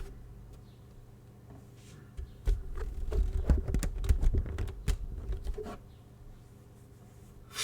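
Clicking and knocking from a keyboard and its hard-shell carrying case being handled, with a dense run of clatter and low thumps in the middle. A short scrape or rustle comes near the end.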